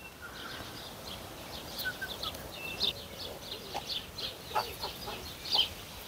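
Farmyard birds calling: many short high chirps scattered throughout, with a few brief lower calls among them.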